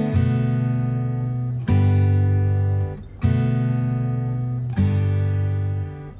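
Background music: an acoustic guitar strumming sustained chords, with a new chord struck about every one and a half seconds.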